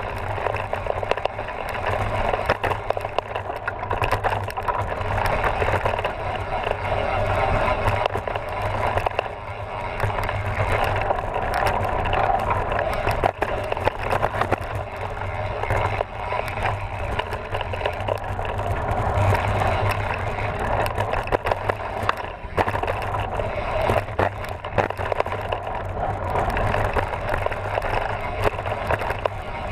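Mountain bike rolling along a dry dirt and gravel trail: a steady rush of tyre noise on loose ground, with frequent small rattles and knocks as the bike goes over stones.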